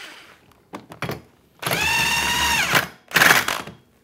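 Cordless drill motor running: a short burst, then a steady run of about a second that winds down in pitch as the trigger is released, and another brief burst just after.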